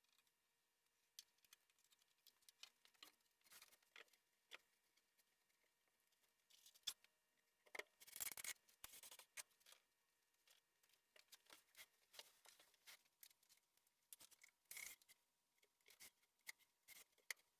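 Faint, scattered clicks and short scrapes of screws and plywood panels being handled and fitted by hand, with a couple of louder scrapes in the middle and near the end.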